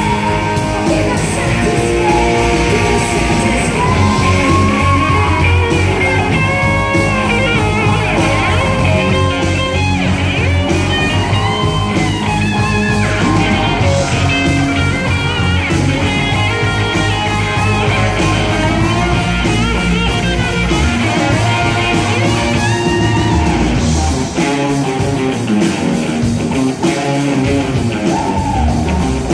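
Live rock-and-roll band playing loud and without a break: electric guitars, bass and drums, with a woman singing part of the time.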